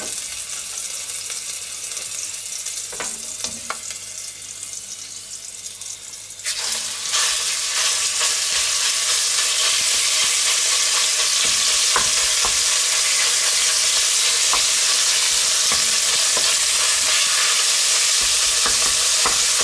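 Clarified butter sizzling lightly in an enamelled cast-iron Dutch oven. About six seconds in, raw minced meat goes into the hot fat and a loud, steady frying sizzle takes over, while a wooden spoon stirs and knocks against the pot.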